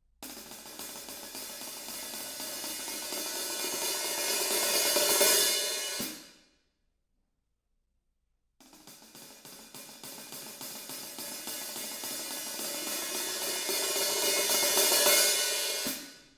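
Drum-kit cymbals played by a beginner in a rapid roll that swells louder for about six seconds and then dies away quickly, twice, with a gap of about two seconds between, heard with hall reverb.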